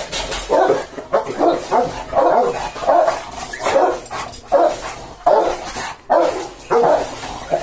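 A dog barking over and over, about two barks a second, with no pause.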